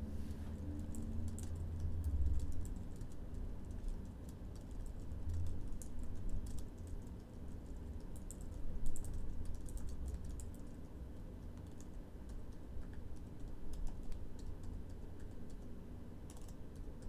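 Typing on a computer keyboard: irregular runs of light key clicks, a few louder clusters among them.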